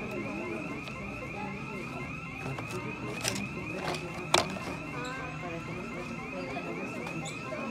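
A steady, high electronic warbling tone, like an alarm, pulsing several times a second over faint background voices. Two sharp plastic clicks come about three and four seconds in, from blister packs being handled.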